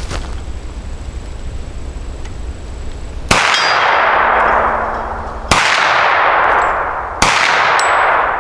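Three shots from a 9mm Hi-Point 995 carbine fitted with a muzzle brake, the first about three seconds in and the others roughly two seconds apart, each followed by a long fading echo.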